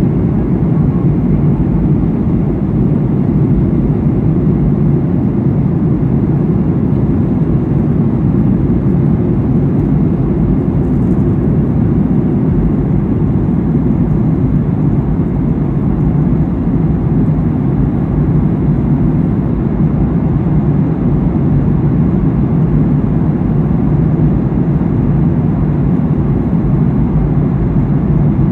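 Boeing 737-800 cabin noise in flight: the steady, low rushing rumble of engines and airflow heard inside the fuselage from a window seat.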